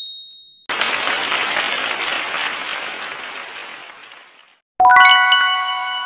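Quiz-show sound effects for a correct answer: a ringing ding dying away, then canned applause starting about a second in and fading out over about four seconds. Near the end a bright chime of several bell-like tones sounds as the next question card appears.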